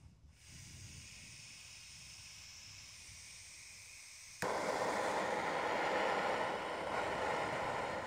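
Handheld torch on a blue Bernzomatic propane cylinder. Gas hisses faintly from the opened valve, then a little over four seconds in the igniter clicks and the flame lights, burning with a much louder steady hiss.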